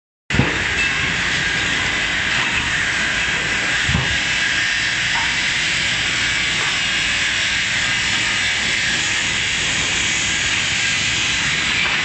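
Multi-rip saw machinery running with a steady, high rushing noise that holds level throughout, with a brief knock about four seconds in.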